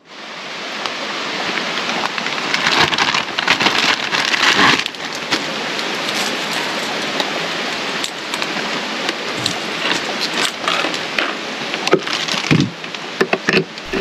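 Steady rain: an even hiss dotted with sharp drop clicks, fading in at the start.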